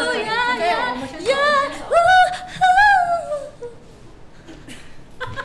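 Women singing without accompaniment, a few voices at first. Then a single voice holds two long notes with vibrato, and the singing stops a little past halfway.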